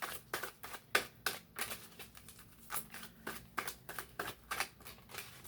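Tarot cards being shuffled by hand: an irregular run of short, sharp card slaps and flicks, several a second.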